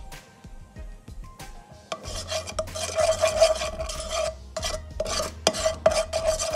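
Spatula scraping around a non-stick frying pan to spread the oil, in several strokes starting about two seconds in, with a squeak running through the scrape.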